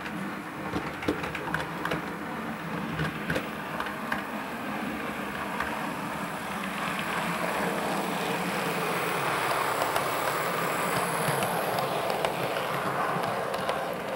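OO gauge model two-car diesel multiple unit running along the layout track: the motor runs and the wheels click over the rail joints. The sound grows louder as the train comes closer and is loudest in the second half.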